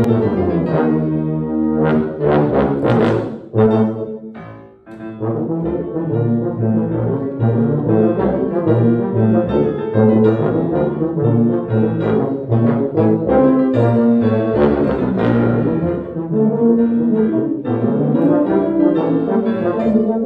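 Two tubas playing a classical trio with piano accompaniment, opening with loud accented chords, dropping away briefly after about four seconds, then playing on steadily.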